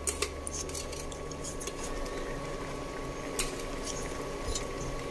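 Metal chopsticks stirring noodles in a metal saucepan of simmering broth, with scattered light ticks and clinks against the pan over a low bubbling. A steady faint hum runs underneath.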